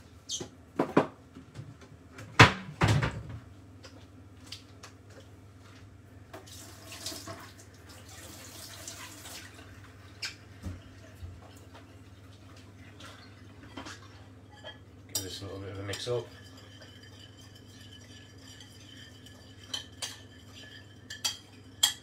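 Kitchen clatter: sharp knocks and clinks of utensils and crockery, the loudest a couple of seconds in, with a few seconds of running water near the middle. Near the end a metal utensil starts clinking against a ceramic bowl as a dressing is whisked.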